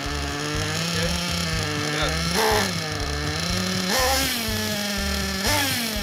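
Small fuel engine of an RC buggy running just after being started. It idles steadily and is revved three times from the transmitter's throttle, each rev rising quickly in pitch and sinking back to idle.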